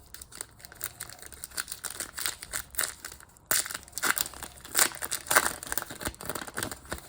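A trading-card pack's wrapper crinkling and the cards inside being handled, in irregular crackling rustles that grow louder about halfway in.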